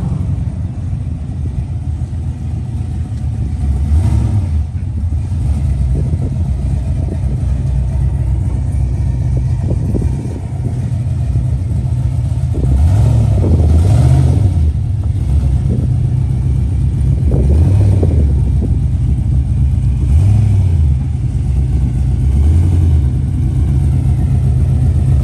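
Car engine running with a deep, steady idle, revved up and back down several times: around four seconds in, twice between thirteen and fourteen seconds, and again near seventeen, twenty and twenty-three seconds.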